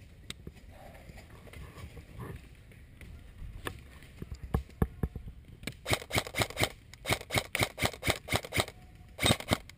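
Airsoft gun firing a string of sharp shots at about five a second, starting around six seconds in, with a short, faster burst near the end. A few scattered shots come before the string.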